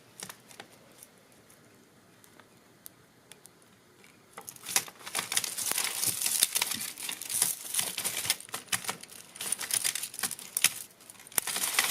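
Tangled costume jewelry being worked apart by hand. A few faint clicks come first; then, from about four seconds in, there is steady crinkling and rustling packed with small sharp clicks of beads and chain.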